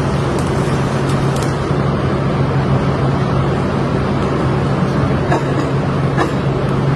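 A steady machine drone: a constant low hum under a broad, even rushing noise, with no change in pitch or level.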